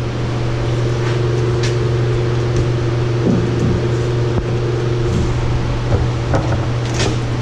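A steady low mechanical hum, with a few sharp clicks and short squeaks as a stiff plastic liner sheet is bent and pressed against the dump truck's steel fantail.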